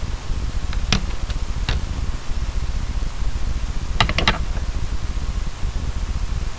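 Scissors snipping: two single sharp clicks about a second apart, then a quick run of four or five clicks about four seconds in, over a steady low background rumble.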